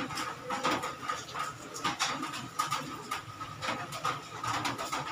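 Cloth rag rubbing and scrubbing inside the cylinder bores of a bare engine block, in irregular short strokes a few times a second, over a steady background whine.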